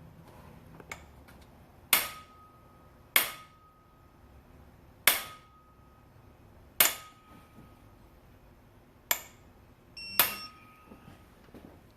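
Six sharp metallic snaps, one to two seconds apart, each with a brief ring, as bolts on a Toyota 2ZR-FE engine are given their final torque with a wrench.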